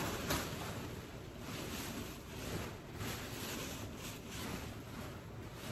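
Rustling of a large white lace dress being gathered up and handled close to the microphone, an uneven swishing that swells and fades.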